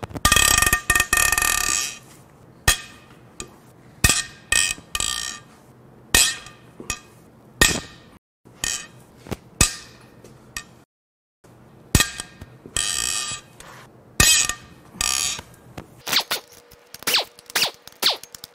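Cylinder head bolts on a Toyota 2GR-FE V6 being broken loose and backed out with a breaker bar and socket. The sound is a run of sharp metal clicks, knocks and clinks, with a few loud rattling bursts about a second long.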